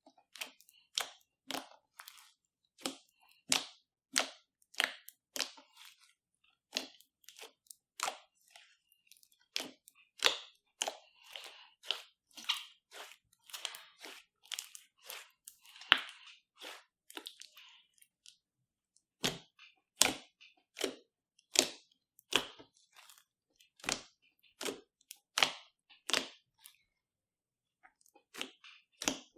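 Slime being squished and folded by hand, giving short sticky pops and crackles about one or two a second, with a brief pause about two-thirds through.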